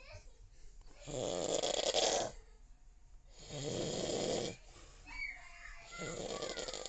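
Snoring: three long snores about two and a half seconds apart, the third one quieter.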